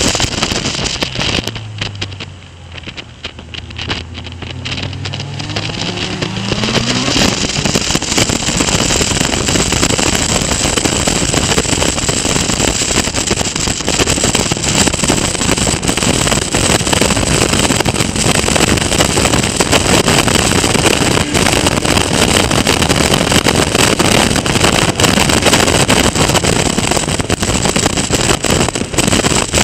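Caterham Seven race car engine heard from an onboard camera. The engine note falls away on a lift for a corner, then climbs steadily as the car accelerates out, about three to seven seconds in. From about seven seconds on it runs hard at high revs under a steady rush of wind and road noise.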